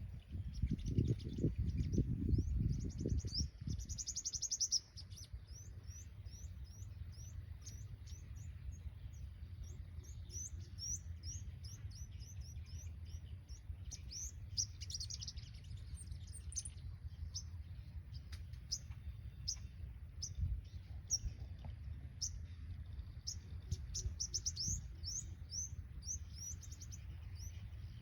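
Sunbirds calling: a running series of sharp, high chirps with several quick trilled bursts. A loud low rumble fills the first few seconds.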